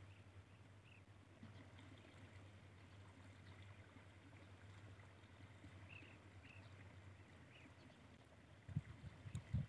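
Near silence: faint outdoor field ambience with a steady low hum, a few faint, short distant bird chirps, and a few low thumps near the end.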